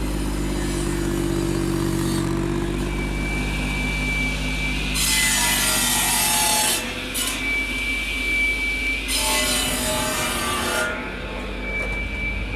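Saw cutting through firewood logs, two loud cuts of about two seconds each, with a thin whine between them. A small Ford diesel tractor engine runs steadily underneath.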